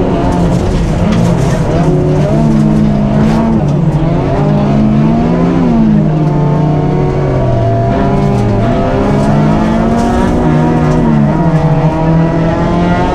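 Onboard sound of a small rally car's engine driven hard on a gravel stage, its pitch climbing and dropping again and again with gear changes and lifts off the throttle.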